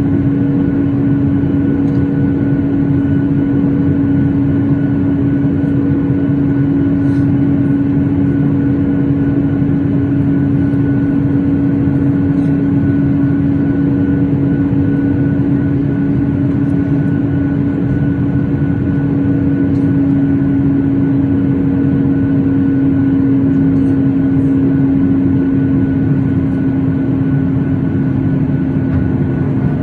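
Steady cabin noise inside a Boeing 737-8: a constant low rumble with a steady droning hum from its CFM LEAP-1B turbofan engines, holding level throughout with no change in engine power.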